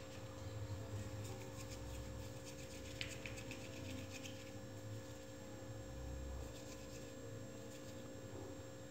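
Faint rubbing and soft clicks of hands rolling and shaping polvilho dough, over a steady low hum.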